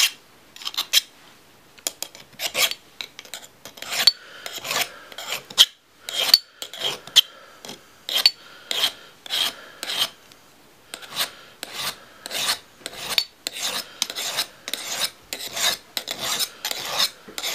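A smoother hand file scraping back and forth across the steel blade of a pair of pruning shears, in a steady run of rasping strokes close to two a second, taking nicks out of the cutting edge.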